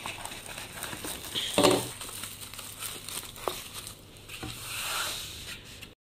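Plastic cling film crinkling and rustling as it is wrapped and pressed around food on a tray, with a louder crackle about a second and a half in.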